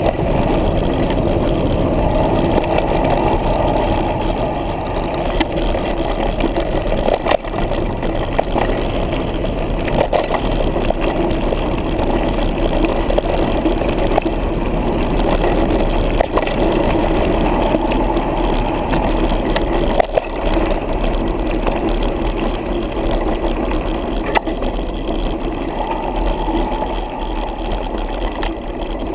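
Trek Rumblefish mountain bike rolling fast down a dirt trail: a steady rumble of tyre and rushing-air noise on the bike-mounted camera, with a few sharp knocks as the bike rattles over bumps.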